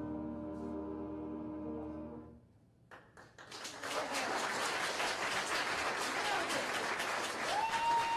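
A school concert band of flutes and brass holds its final chord, which cuts off about two seconds in. After a brief hush the audience breaks into applause that builds, and a long whistle joins near the end.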